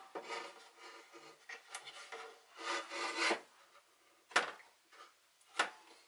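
Glass shelf scraping against the sides of an aluminum medicine cabinet as it is worked into place, then two sharp clicks about a second apart near the end as it is pressed onto its support nubs with a press fit.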